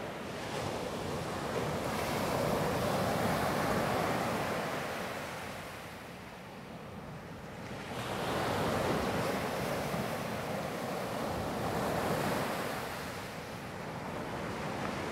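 Small ocean waves breaking and washing up a sandy beach, a steady rush of surf that swells and eases twice.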